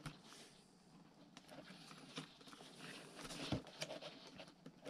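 Faint handling noise: small clicks and rustling from fingers working small plastic servo wire connectors together at a foam model airplane's tail.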